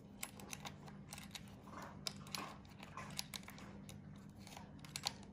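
Faint scattered clicks and ticks of a small metal screw eye with a dangling hook being turned back out of a mask's jaw by hand, the metal lightly clinking as it is handled, over a low steady hum.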